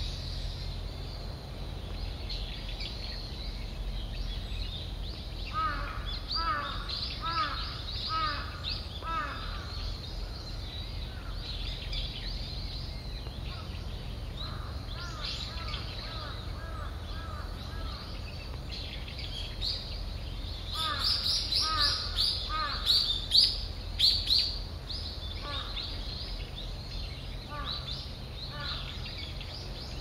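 Several wild birds calling in a series of short repeated notes, about two a second, with a louder burst of sharp high calls about two-thirds of the way through. A low steady rumble runs underneath.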